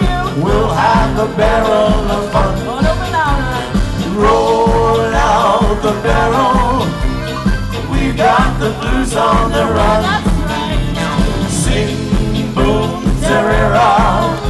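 Live band music with accordion, electric guitar and keyboard over a steady beat, with a singer on the microphone.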